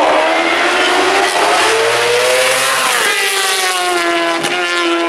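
1000 cc four-stroke Superbike racing motorcycles at full throttle, the engine note climbing as they accelerate, then dropping about three seconds in as they pass and pull away, with a short sharp crack near the end.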